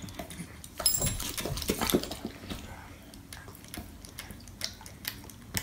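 Hand-held plastic spray bottle spritzing water, a quick cluster of short sprays between about one and two seconds in.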